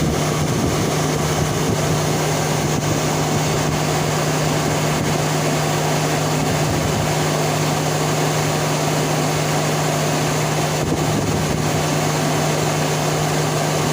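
2017 Chevrolet Silverado's electric radiator cooling fans running on at high speed with the engine switched off, a steady whooshing hum with a low drone. The fans stay on long after shutdown, which the owner blames on a stuck fan relay.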